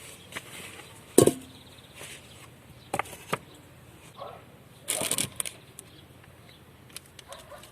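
Handling noises: a few scattered knocks and clicks, the loudest about a second in, and a brief rustling burst around the middle.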